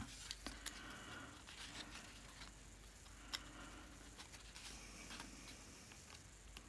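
Faint rustling of paper being slid and handled on a work surface, with a few light taps and clicks; the sharpest tap comes about three seconds in.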